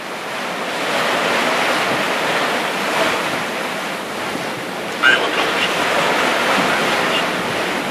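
Open-sea waves washing, with wind, in a steady rushing noise that swells about a second in. A brief sharp sound stands out about five seconds in.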